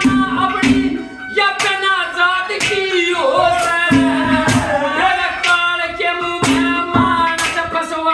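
Ragni folk song: a voice sings a gliding, ornamented melody over instrumental accompaniment, with regular percussion strokes.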